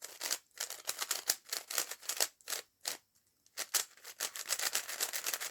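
Plastic speed cube being turned quickly, its layers clicking and clacking about five times a second with a short pause a little past the middle, as the freshly lubricated cube is broken in.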